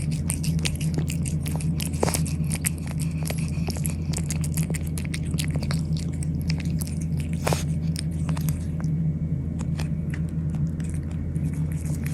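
Cats eating, with rapid small chewing clicks that thin out near the end, over a steady low hum.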